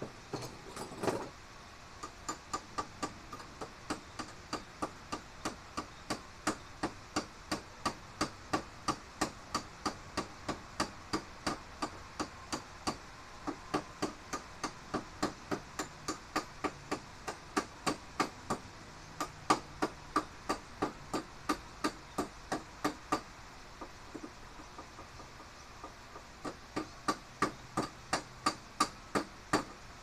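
Hammer tapping on a metal piece held in a bench vise, a steady run of blows about two a second with a short ring after each. The tapping stops for about three seconds near the end, then starts again.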